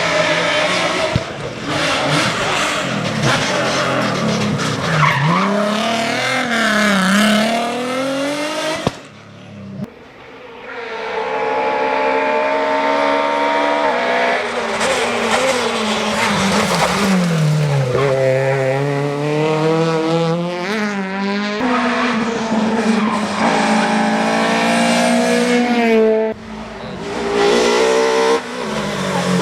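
Rally cars driven hard, several in turn, engines revving up and dropping back through gear changes, with tyres squealing in the corners.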